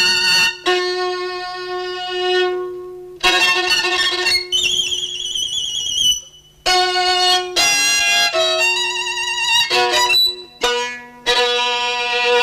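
Solo violin played with the bow: a string of held notes broken by short pauses, several high notes wavering with a wide vibrato.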